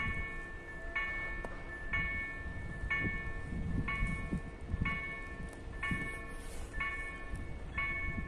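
Level-crossing warning bells striking about once a second, each stroke ringing and dying away, over a low rumble. The crossing's warning is active.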